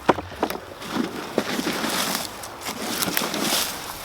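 Crackling, scraping rustle of dry compost and a plastic potato container being handled, with several sharp clicks.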